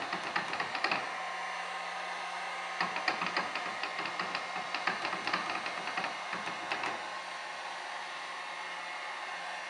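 Heat gun blowing with a steady rush of air and a low motor hum. Over it, fingertips pat the softened vinyl lettering down onto a stretched canvas in quick taps, about five a second: a short run in the first second and a longer run from about three to seven seconds in.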